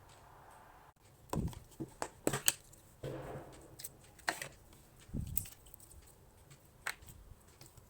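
Crunchy slime being squeezed and pressed by hand, giving irregular crackles and pops, with a cluster of louder ones about two seconds in.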